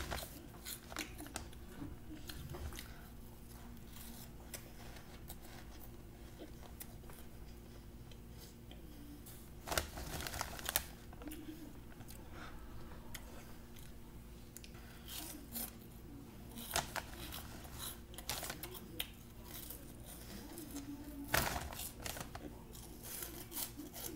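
Cheeto Puffs snack bag crinkling and cheese puffs crunching as they are grabbed and eaten fast, in scattered short bursts over a faint steady hum.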